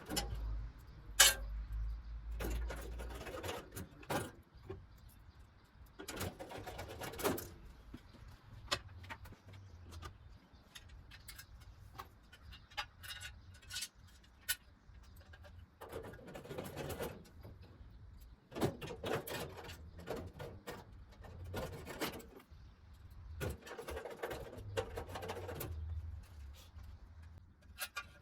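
Irregular handling noises from unpacking and moving parts: rustling and scraping in bursts of about a second, with scattered clicks and a sharp knock about a second in.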